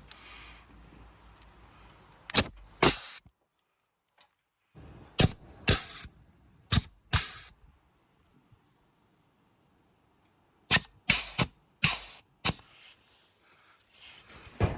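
Sharp knocks and clacks from hand work on a ride-on mower, in clusters of two or three, with stretches of dead silence where the sound cuts out between them.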